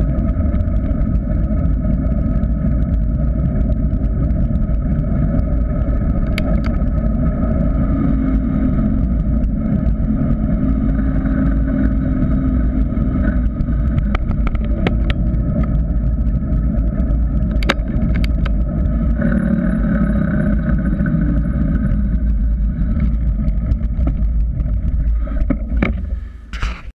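Wind buffeting the microphone of a GoPro Hero 3 on a mountain bike rolling fast downhill, with tyre noise on tarmac: a steady, deep rumble. A few sharp clicks come through, and the noise dies down just before the end as the bike slows.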